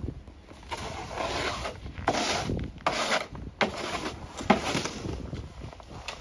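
Snow shovels scraping and pushing packed snow, a series of rasping strokes with short gaps between them.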